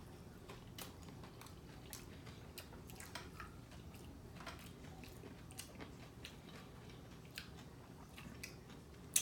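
A person chewing and biting a taco: quiet mouth sounds with scattered small crunchy clicks.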